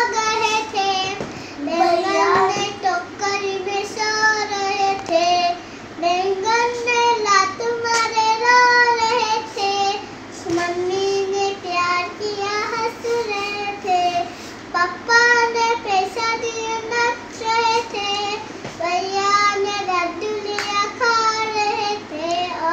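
A young girl singing a nursery rhyme unaccompanied. She sings in short phrases with brief breaths between them.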